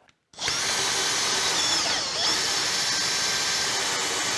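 Hand-held electric drill starting up about a third of a second in and running steadily, drilling the 6.2 mm tap-drill hole for a helicoil into the steel top cap through a linear rail used as a drill guide. Its whine dips sharply and recovers about two seconds in, as the bit loads up in the cut.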